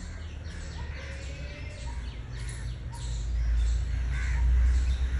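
Crows cawing repeatedly, short harsh calls a few times a second. A low rumble grows louder from about three seconds in.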